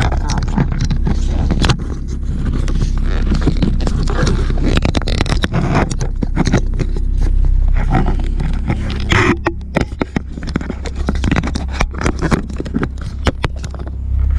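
Action camera being handled and refitted on a car's steering wheel hub: rubbing and scraping of hands and the mount against the wheel's plastic, with many sharp clicks and knocks. A low steady hum of the idling car engine runs underneath.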